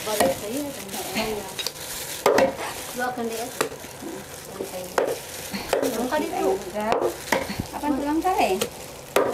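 Cleaver chopping raw chicken on a wooden chopping block: sharp chops at irregular intervals of about a second, with a knife working meat and faint voices in the background.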